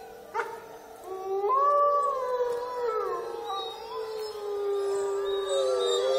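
A pack of wolves howling together: several long, slowly gliding howls overlap from about a second in and swell louder toward the end, after a brief sharp sound just before.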